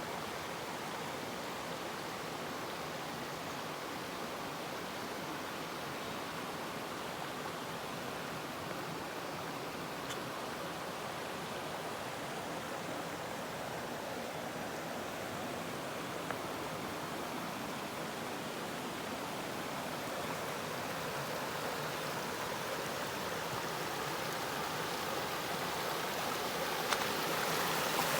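Steady rush of running water, growing louder over the last several seconds.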